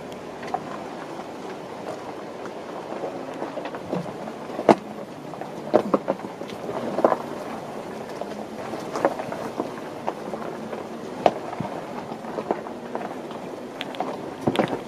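A Jeep driving slowly over a rough, rocky dirt road: a steady rumble from inside the vehicle with irregular knocks and clatters as the tyres roll over rocks.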